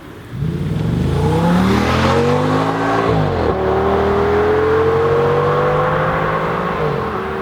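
Audi S6's 5.2-litre V10 accelerating hard under load. The engine note comes in loudly about half a second in and climbs in pitch, drops sharply on an upshift about three seconds in, then climbs again more slowly, with another shift near the end.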